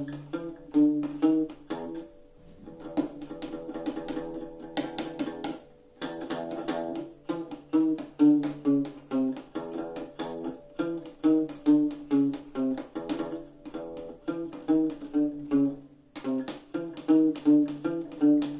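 Small child-size acoustic guitar played by a young child: single notes picked one at a time in a repeating pattern, with a softer stretch of quickly repeated strokes a few seconds in.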